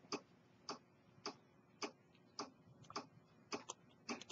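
Steady mechanical ticking from a timepiece: a sharp tick a little under twice a second, with a few fainter extra clicks between them.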